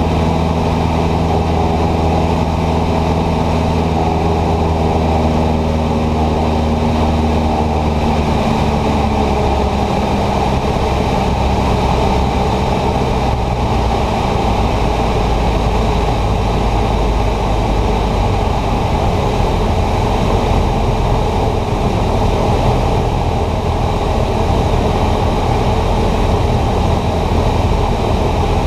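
Cessna 150's four-cylinder Continental O-200 engine and propeller droning steadily in cruise flight, heard from inside the cockpit. About nine seconds in, the clear engine hum blurs into a rougher, lower drone.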